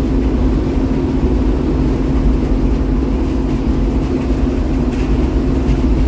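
Combine harvester running steadily under load while harvesting corn, a constant low engine-and-machinery hum.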